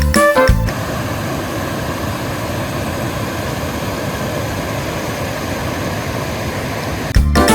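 Wood fire burning in a homemade tin rocket stove, a steady rushing noise with no clear pitch. Background music cuts out about half a second in and returns near the end.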